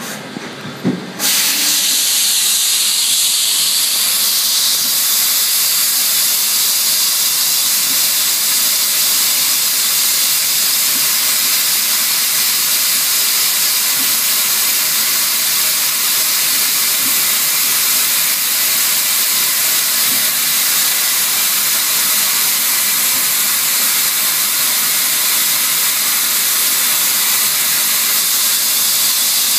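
Steady, loud hiss of coolant spraying inside a CNC lathe's enclosure, starting suddenly about a second in.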